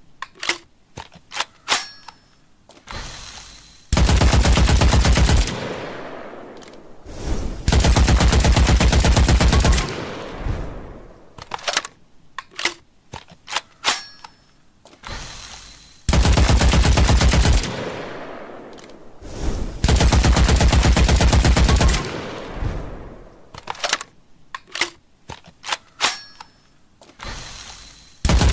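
Machine-gun sound effect: long bursts of rapid automatic fire, each about one and a half to two seconds, alternating with scattered single shots that ring out with echoing tails. The same sequence repeats about every twelve seconds.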